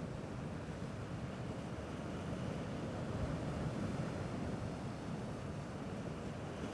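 Steady low wash of small sea waves, with light wind rumbling on the microphone; no pebble splash.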